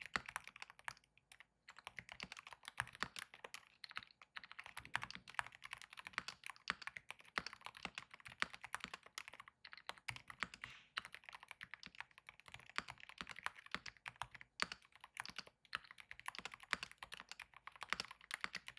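Continuous fast typing on a Keychron R5 Retro keyboard with Keychron Silent Red linear switches and double-shot PBT OSA keycaps: soft, muted key clacks in quick irregular runs, with a brief pause about a second and a half in.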